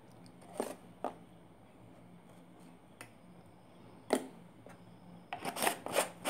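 Light handling noise as a pinch of salt is added to a glass bowl of flour and spices: a few separate short clicks and taps, then a quick cluster of them near the end.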